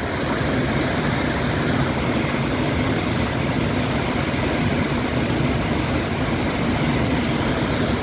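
Lasifashaj waterfall heard from close by: a heavy, powerful torrent of water pouring over rock as one steady, deep, unbroken rush of noise.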